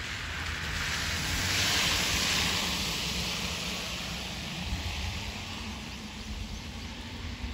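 Tyre hiss of a vehicle passing on a wet, slushy road. It swells to a peak about two seconds in and fades away slowly, over a low rumble.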